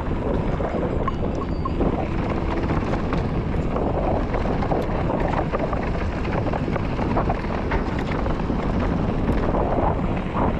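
Wind rushing over the microphone and tyres rolling on a dirt trail as a mountain bike descends, with scattered small clicks and rattles.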